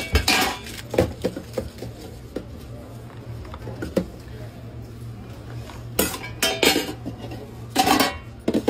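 Stainless steel serving-pan lids and a metal serving spoon clinking and knocking against steel food pans in scattered clicks, with a louder run of clatter near the end.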